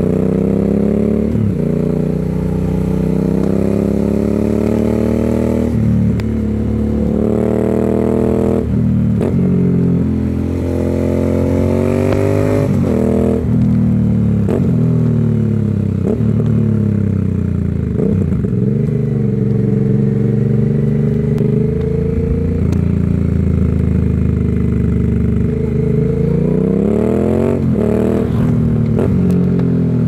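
2021 Aprilia Shiver 900's V-twin engine through a RoadsItalia aftermarket exhaust, ridden hard through bends. The pitch climbs under throttle and drops sharply several times as the rider shifts gear or backs off, then climbs again.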